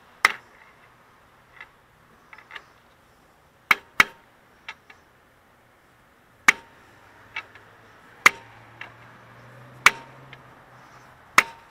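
About a dozen sharp hammer blows on metal at an uneven pace, some leaving a short ring, striking at the rust-seized original alternator on a Toyota 3.4 V6 to knock it free.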